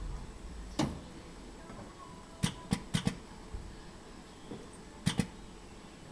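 Sharp clicks of metal spring clips snapping as shoe straps are clipped onto a conveyor drying rack: one about a second in, three in quick succession around two and a half to three seconds, and a close pair about five seconds in. A steady low hum runs underneath.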